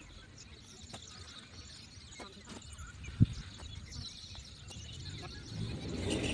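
Quiet rural outdoor ambience with faint bird chirps and a few faint, scattered knocks. A single sharp low thump comes about three seconds in, and a rushing noise rises near the end.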